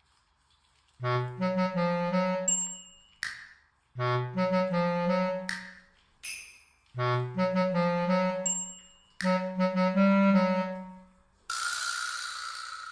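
Background music: a short melodic phrase repeated three times, starting about a second in, each ending with a bright ding, then a hissing swell near the end.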